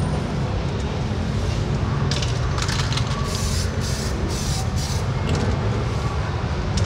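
Samurai Paint decorative chrome aerosol spray can hissing in several short bursts, starting about two seconds in, over a steady low hum in the background.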